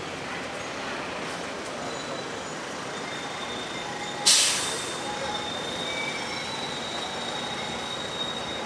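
A tram passing on a city street, with a thin steady high squeal from its wheels on the rails over a general traffic hum. A short, loud hiss of air comes about four seconds in.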